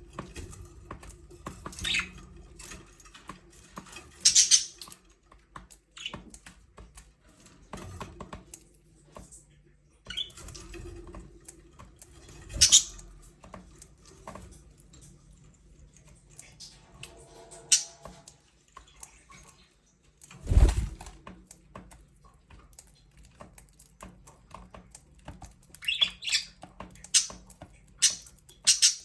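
Budgerigars chirping in short, scattered calls, with a single dull thump about two-thirds of the way through.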